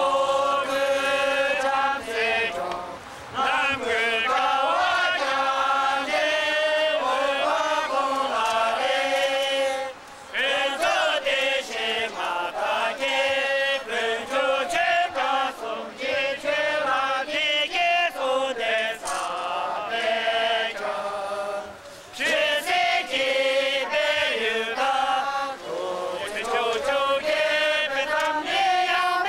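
A crowd of voices singing or chanting together in unison, a melody of long held notes with brief pauses between lines, three times.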